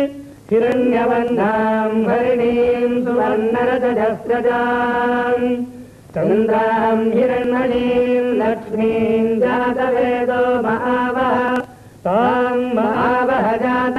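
Sanskrit mantras chanted on long held notes in recitation style, the ritual chanting that accompanies a temple abhishekam. The phrases are broken by short breaths about half a second, six and twelve seconds in.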